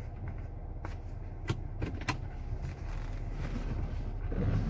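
Steady low road and engine rumble inside a moving car's cabin, with two sharp clicks about a second and a half and two seconds in.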